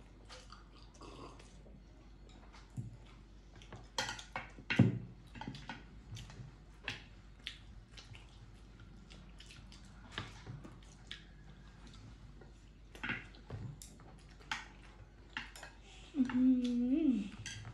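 Eating at a table with chopsticks: scattered small clicks and knocks of chopsticks against china plates, with wet chewing and mouth sounds. A brief voice sound rises and falls near the end.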